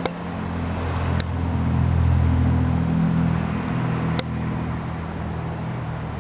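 Low engine rumble, like a motor vehicle going by, swelling about two seconds in and easing off, with three short sharp clicks.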